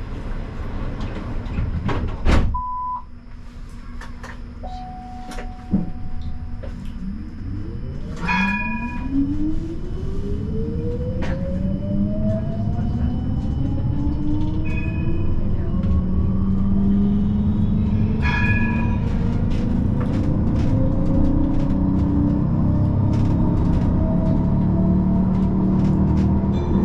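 Siemens Combino tram pulling away from a standstill. A sharp knock and two short beeps come first, then the electric traction motors whine, in several layers rising in pitch as it accelerates, and settle into a steady running hum with wheel-on-rail rumble.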